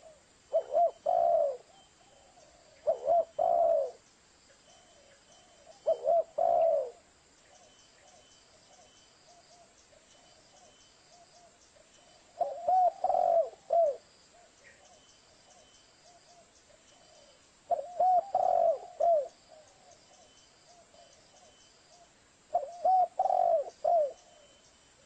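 Spotted dove (tekukur) cooing, a lure call for attracting spotted doves: six short phrases of two to four low coo notes, spaced several seconds apart. Faint high chirping runs underneath.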